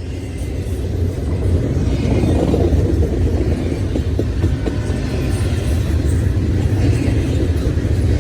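Double-stack container freight train rolling past with a steady low rumble that grows louder over the first two seconds, with scattered clicks from the wheels.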